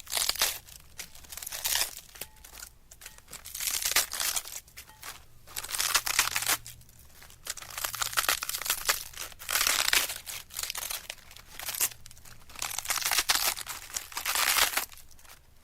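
Crinkling and crumpling sound effect in repeated bursts every second or two, each a dense run of small crackles.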